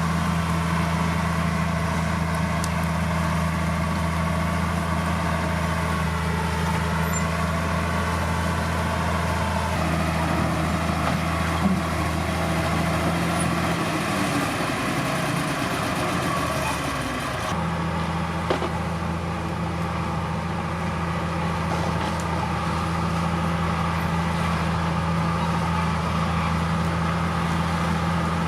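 Heavy diesel earthmoving machinery running steadily with a constant low engine hum. The hum drops away for about three seconds around the middle, then picks up again. There is a short knock about twelve seconds in and another about eighteen seconds in.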